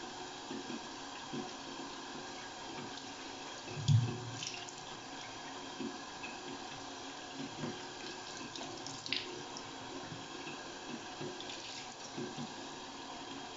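Bathroom sink tap running steadily while the face is rinsed by hand, with short splashes of water throughout and one louder low thump about four seconds in.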